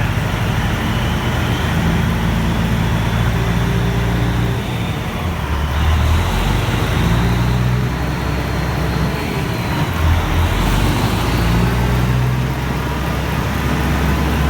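Heavy diesel truck running under load on a chassis dynamometer: a loud steady drone whose low pitch shifts every few seconds, with a faint high whine that rises a little about six seconds in and fades near ten seconds.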